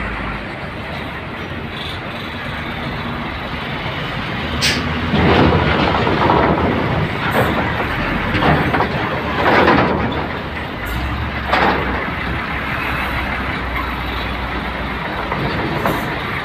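A diesel truck with a container-style cargo box drives slowly past close by. Its engine runs under a rattling, clanking body, and the sound grows louder with clatter from about five seconds in to about twelve seconds, as the truck comes nearest.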